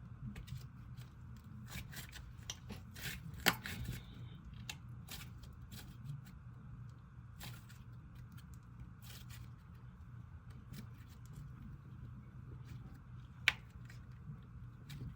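Lavender-scented dough slime being squished and stretched by hand: faint scattered clicks and crackles over a steady low hum, with a sharper click about three and a half seconds in and another near the end.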